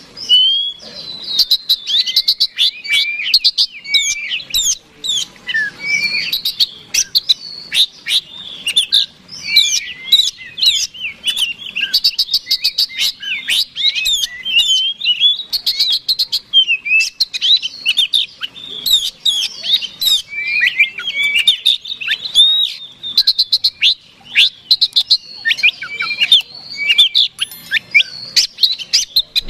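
Oriental magpie-robin (kacer) singing without pause in its combative fighting song: a fast, varied stream of high whistles and slurred notes mixed with runs of sharp ticks.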